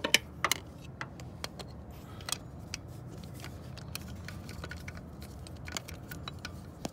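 Socket wrench and extension clinking against the starter's mounting bolt as they are fitted on and worked: irregular sharp metallic clicks, several in quick succession at the start and more scattered after, over a steady low hum.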